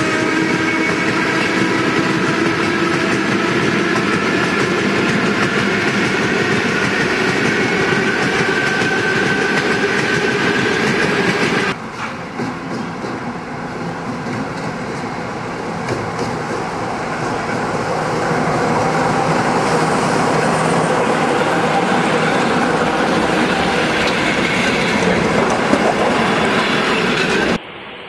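Electric suburban multiple-unit trains running through a station: a steady loud rush of wheels on rail with clickety-clack and a whining tone over it. About twelve seconds in the sound cuts to a quieter approaching train that builds to a steady loud passing rumble.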